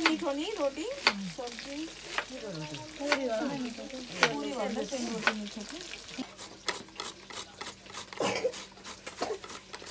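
Hands squishing and kneading wet minced chicken momo filling in a steel bowl: wet squelching and crackling, with a voice in the background during the first half. After about six seconds, ginger is scraped on a hand grater in short rapid strokes.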